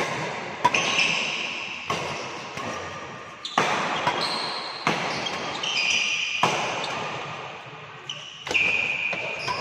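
Badminton rally with a Li-Ning Windstorm 72 racket: sharp shuttlecock hits, about seven of them at intervals of one to two seconds, each echoing briefly, with high squeaks between the hits.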